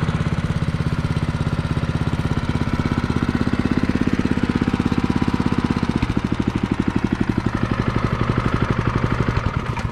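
Honda GX120 single-cylinder four-stroke engine on an Allett Kensington 20H reel mower running steadily just after an oil change, warming up to circulate the fresh oil. Its tone shifts slightly about six seconds in.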